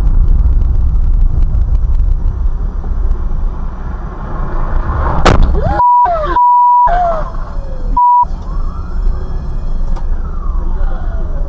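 Steady low rumble of a vehicle driving, with a single sharp bang about five seconds in. After that a siren wails slowly up and down, and a steady beep tone sounds three times, blanking out everything else while it plays.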